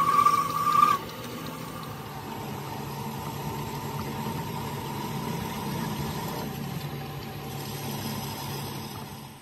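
A machine-shop machine tool running steadily with a low hum, a brief louder high whine in the first second.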